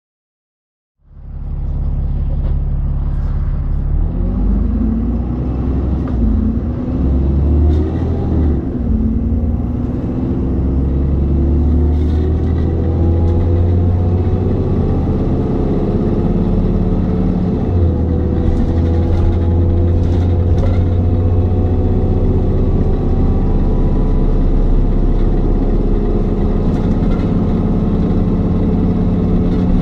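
Onboard a moving ADL Trident double-decker bus with a ZF automatic gearbox: the diesel engine drones loudly as the bus drives along, its pitch rising and falling with acceleration and gear changes. Occasional sharp rattles from the bodywork are heard. The sound starts suddenly about a second in.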